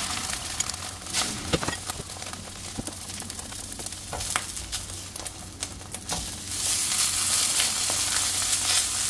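Egg-battered pollock fillets sizzling in a hot stainless-steel frying pan, with scattered clicks of a spatula against the pan. The sizzle grows louder about two-thirds of the way in.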